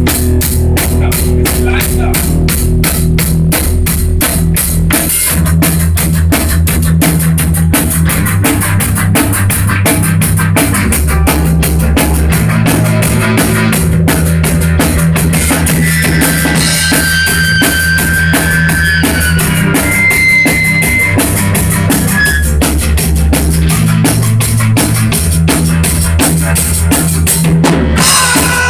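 Rock music with a steady, busy drum-kit beat and a bass line. A high melodic lead line comes in about halfway through, and the band drops out briefly just before the end.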